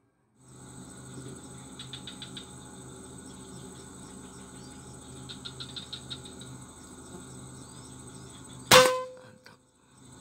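A single rifle shot about nine seconds in, sharp and loud, followed by a short ringing tone. Before it, a steady insect buzz with scattered clicking chirps.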